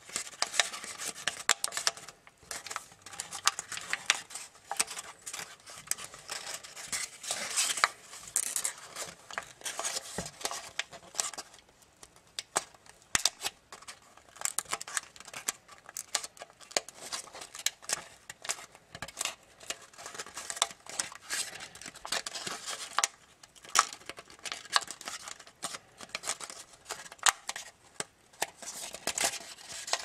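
Tissue-foil paper crinkling and crackling under the fingers as it is folded and pressed into shape. The crackles come irregularly, with brief quieter pauses.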